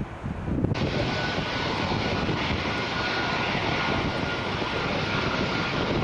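Airliner engines running loud with a steady high whine over a broad rush. The sound cuts in abruptly just under a second in.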